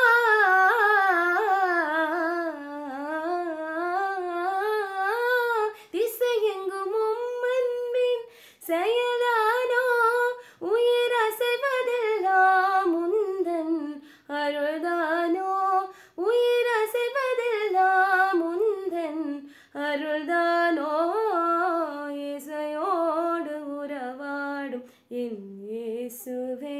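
A young woman singing a Tamil Christian song solo and unaccompanied, in long ornamented phrases with wavering, sliding pitch and short breaths between them.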